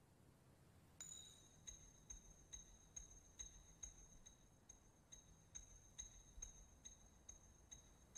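Faint, evenly repeated metallic pings, about two to three a second, each a light tick with a short bright ring at the same pitch every time, starting about a second in over near silence.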